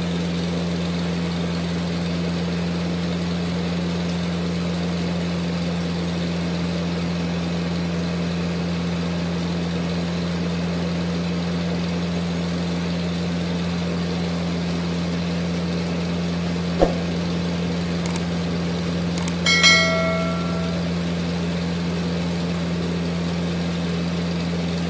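Rice mill machinery running with a steady, unchanging low hum. A single sharp knock comes about two-thirds of the way through, and a brief high-pitched squeak follows a few seconds later.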